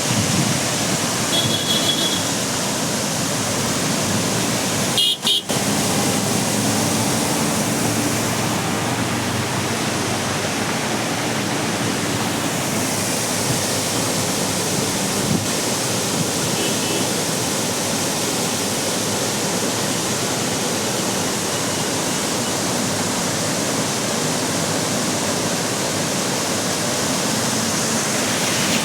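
Heavy flood water from a rain-swollen streamlet rushing across a road, a steady loud rush. Short high beeps sound about two seconds in and again about five seconds in.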